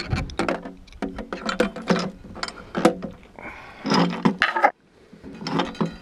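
A man's voice in a string of short grunts and hard breaths, several in a row with brief pauses, from straining at a physical task.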